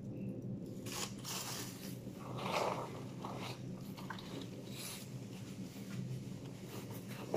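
Plastic garbage bag and the paper waste inside it rustling and crinkling in irregular bursts as gloved hands rummage through the trash, over a low steady hum.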